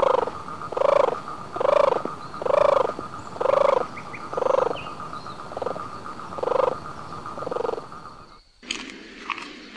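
An animal calling over and over, about nine short pitched calls roughly one a second, over a steady background hum. It cuts off abruptly near the end, giving way to a quieter scene with a few faint chirps.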